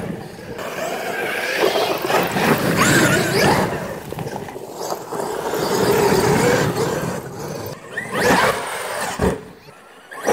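Traxxas X-Maxx electric RC monster truck driving over leaf-covered dirt: its motor and drivetrain whine rising and falling in pitch with the throttle, over the noise of the tyres churning the ground. It fades down near the end.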